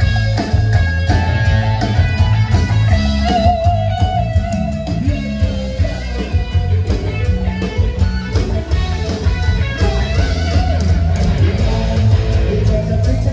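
Band music with no singing: an electric guitar plays a melody over heavy bass and a steady beat.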